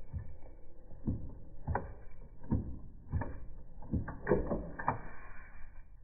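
Wrench working the dirt bike's shift-pedal pinch bolt: a series of short metallic clicks and knocks, about one every half second to a second, as the bolt is turned out.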